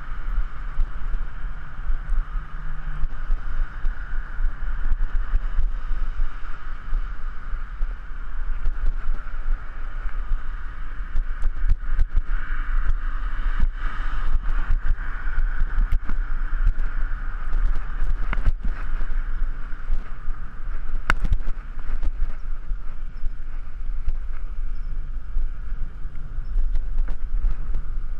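Steady wind rumble and riding noise on a bicycle-mounted GoPro rolling along a concrete sidewalk, with scattered sharp clicks and knocks from bumps.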